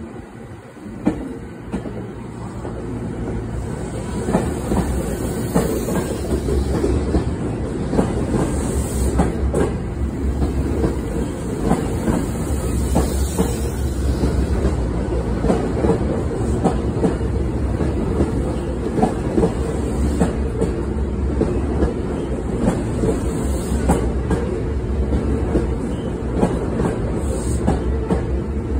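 Hankyu electric train running past the platform, its wheels clicking over rail joints over a deep rumble. It grows louder over the first few seconds, then stays steady.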